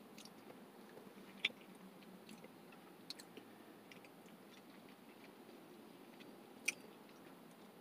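Faint chewing of a mouthful of soft white cheddar macaroni and cheese, with a few short clicks.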